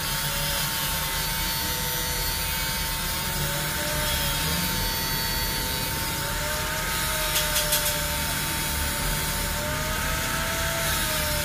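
Handheld electric drill running steadily, spinning a long steel rod held in its chuck, with a steady whine over a rubbing, scraping noise. A few quick clicks come about two-thirds of the way through.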